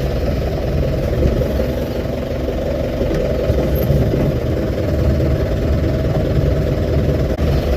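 Car engine running steadily at low revs as the car is eased slowly to straighten it in a parking spot.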